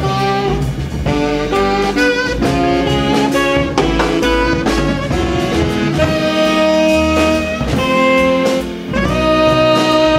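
Background jazz music with horns and a steady drum beat.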